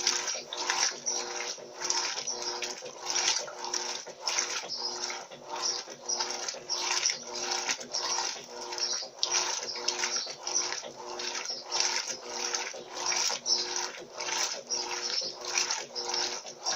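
Electrolux Turbo LT12B top-loading washing machine agitating a load of dish towels in a low level of water. The wet load sloshes in a steady rhythm of about two to three splashes a second over the faint hum of the motor.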